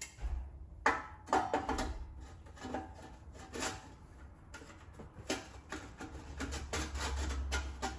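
Exhaust tips being handled and worked onto the tailpipes: a string of irregular clicks, knocks and light scrapes, over a low rumble.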